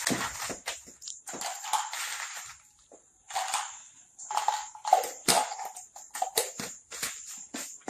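Dry chickpeas being poured into a bottle, rattling and clattering in uneven bursts, with a short lull about three seconds in.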